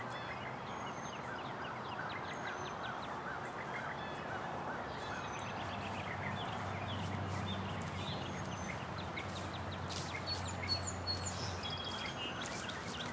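Birds calling outdoors, many short chirps and calls scattered throughout, with a low steady drone from about six to eleven seconds in.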